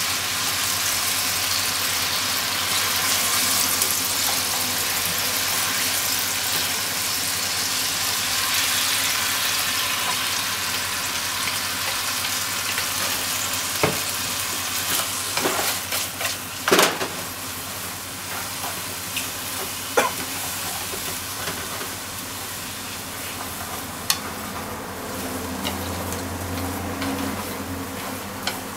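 Oil sizzling in a frying pan as shimeji mushrooms, then bean sprouts, are stir-fried with wooden chopsticks. The sizzle is steady and eases somewhat after the halfway point, with a few sharp knocks against the pan.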